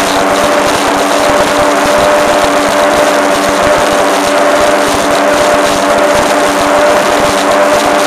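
Skater powerboat's engine running steadily at speed, a constant drone with two steady tones, over the rush of wind and water.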